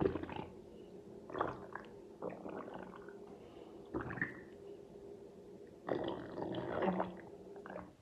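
Stomach growling and gurgling in several separate irregular rumbles, the longest one near the end, over a faint steady hum.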